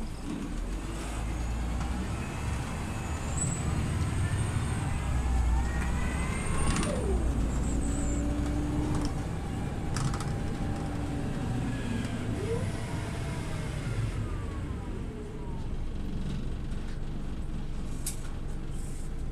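Scania OmniLink CL94UB city bus accelerating, a low engine rumble with a whine that climbs in pitch and drops back twice, at about seven seconds and again near thirteen seconds, as the gearbox shifts up. A couple of sharp clicks near ten seconds and near the end.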